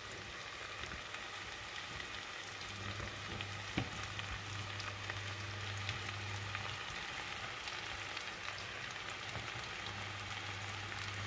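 Sliced mushrooms, potatoes and onions frying in oil in a stainless steel pot: a steady sizzle with faint crackles.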